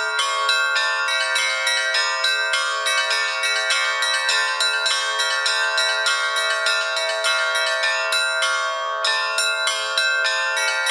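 Bells struck in quick, even succession, about four or five strikes a second, their tones overlapping and ringing on.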